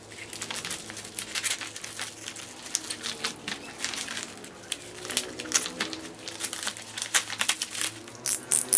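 Bubble wrap and plastic packaging crinkling and rustling as it is pulled off a small boxed ratcheting screwdriver by hand, in irregular crackles, with a few sharper clicks near the end.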